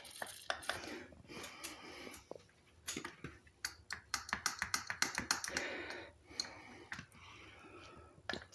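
Irregular small metallic clicks and taps from hand work on a motorcycle's brake parts, as stiff linkages are worked loose after the bike has sat unused for a long time.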